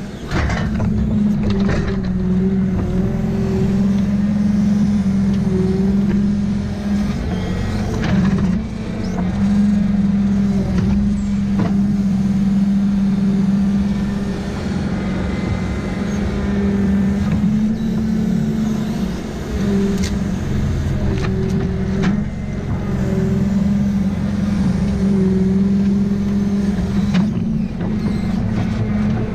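Valmet 840 forwarder's diesel engine running steadily under the load of its hydraulic crane as it unloads logs, heard from inside the cab. The engine note dips and recovers as the crane moves, with a few knocks of logs landing.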